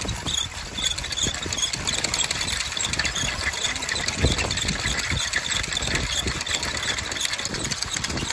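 Wooden whirligigs turning in the wind: a steady, fast rattling whir of spinning propellers and clattering moving parts.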